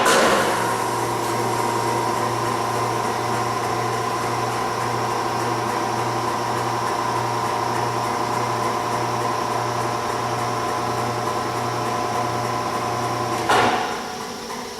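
Electric drive of an Aronson HD 160 heavy welding positioner running under pendant control, a steady mechanical hum with a faint whine. It starts with a clunk and stops with another clunk near the end.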